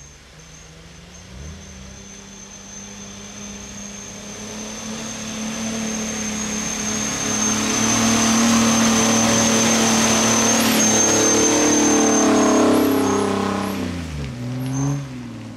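Off-road Jeep's engine pulling up a steep, muddy trail, growing louder as it approaches and running loud for several seconds. Near the end it passes close by and its pitch drops as it moves away.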